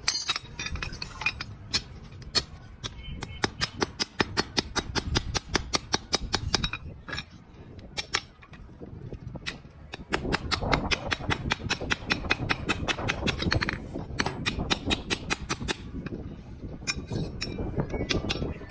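Hammer blows on steel in quick, even runs of about five strikes a second, each with a bright metallic ring; two long runs with a pause between them and scattered single knocks around them.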